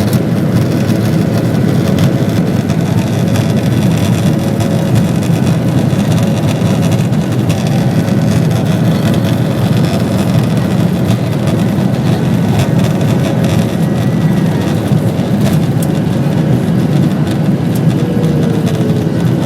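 Passenger plane's engines running during takeoff: a loud, steady drone.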